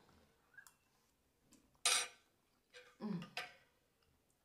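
Mouth-closed chewing of a big mouthful of shrimp and grits, with a short clatter just before two seconds as the metal fork is set down on the wooden board, then two brief muffled hums around three seconds in.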